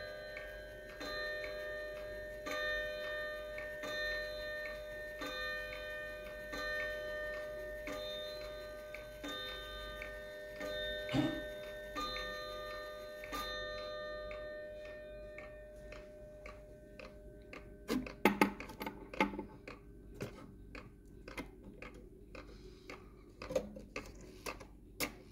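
Kieninger triple-chime wall clock's chime rods ringing under a slow series of strikes about 1.4 s apart, each leaving a long ringing tone. About halfway through the ringing stops, and irregular clicks and knocks follow.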